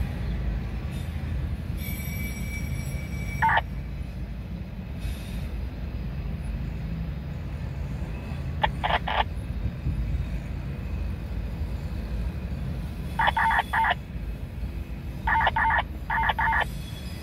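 Rail yard train noise: a steady low rumble, with quick clusters of short high-pitched tones about halfway through and twice near the end.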